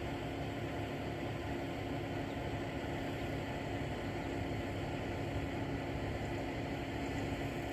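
Distant vehicle engine running with a steady low hum, under a rushing noise.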